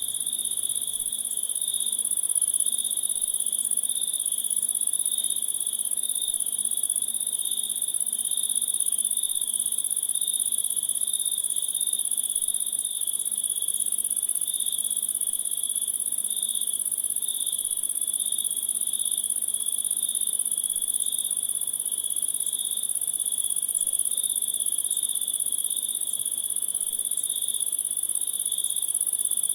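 A chorus of insects trilling continuously at a steady level: one very high, even trill over a lower one that pulses.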